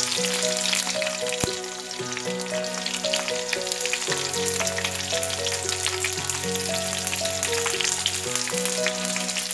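Sliced onions with mustard seeds, green chillies and curry leaves frying in hot oil in a kadhai: a steady sizzle full of small pops as the onions go in. A soft instrumental melody of held notes plays underneath.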